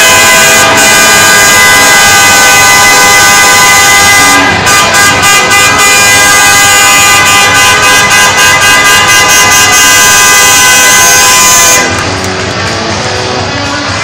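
Hockey arena goal horn sounding loudly and steadily, then cutting off about twelve seconds in, after which arena music plays over crowd noise.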